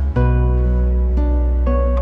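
Gentle instrumental background music: plucked-string notes over long, held low bass notes, with a new chord coming in just after the start.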